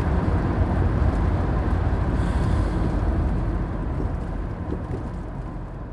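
Inside the cabin of a 2002 Mercedes-Benz C230 Kompressor under way: steady engine and road rumble from its supercharged M111 four-cylinder. The sound fades away over the last few seconds.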